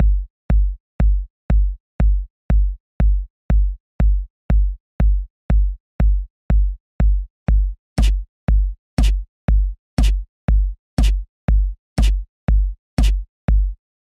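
Background electronic music made in Incredibox: a steady kick-drum beat about twice a second, joined about halfway through by a sharper snare-like hit once a second.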